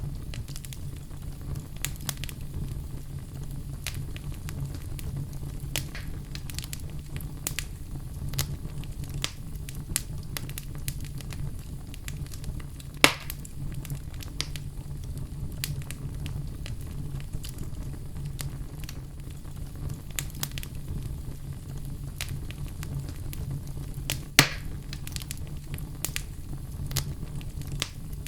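Wood fire crackling, with many small clicks over a steady low rumble and two louder pops, one about halfway through and one near the end.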